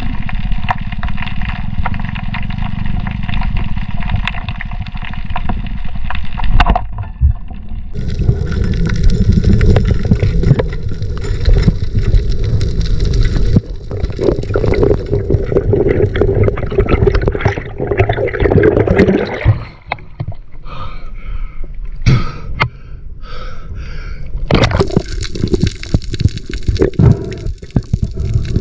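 Water gurgling and sloshing, as heard by a camera in the sea, with scattered knocks and bubbling. The sound changes abruptly several times, about a quarter, half and two-thirds of the way through, as one clip cuts to the next.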